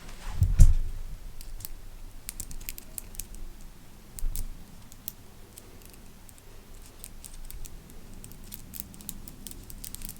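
A fidget chain toy being handled, its links clicking and jangling in many small, irregular clicks, with one heavier thump under a second in.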